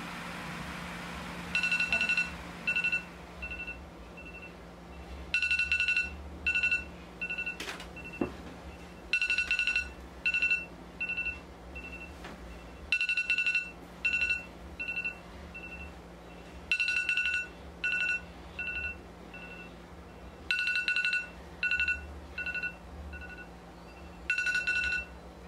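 A smartphone going off on a nightstand with a repeating electronic tone pattern: each cycle is a longer buzzy tone followed by several shorter beeps that fade, repeating about every four seconds. It starts about a second and a half in.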